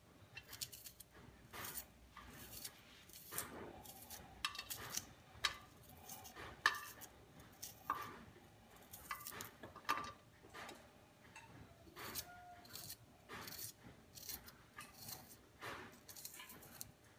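Faint, irregular clicks and light taps from a small knife slicing a shallot held in the hand, the slices dropping into an empty metal wok.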